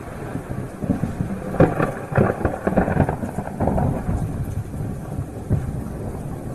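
Thunder rumbling, with a run of crackling peals between about one and four seconds in, easing to a lower rolling rumble.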